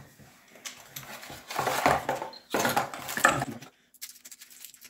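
Cardboard packaging and small plastic parts being handled: two rustling, scraping bursts about one and a half and two and a half seconds in, with light clicks and taps around them.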